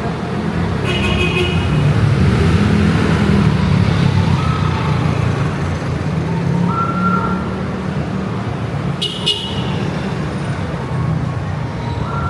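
Busy street traffic: vehicle engines running steadily, with several short horn toots scattered through.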